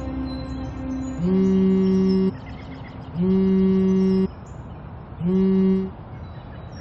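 Mobile phone buzzing with an incoming call: three steady buzzes about two seconds apart, the last one cut short, as soft background music fades out at the start.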